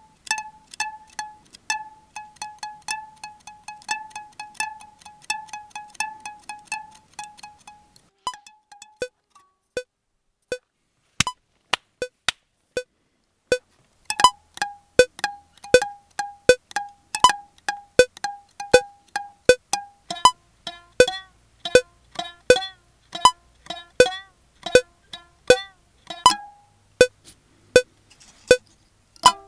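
Music built from samples of a homemade plucked string instrument: sharp, clicky plucked notes in a repeating rhythm. One note repeats about three times a second at first, thins to single hits about once a second, then returns denser with a second, lower note from about halfway through.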